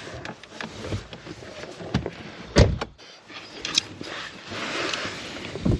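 Clicks and knocks of a screwdriver and plastic dashboard trim being handled while T20 screws are worked under the dash. There is one louder knock about two and a half seconds in and a short stretch of scraping near the end.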